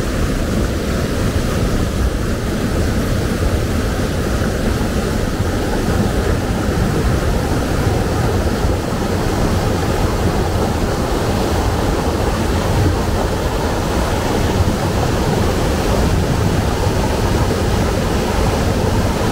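Whitewater of a rocky mountain stream rushing through rapids and spilling over boulders in a small cascade: a loud, steady rush of water.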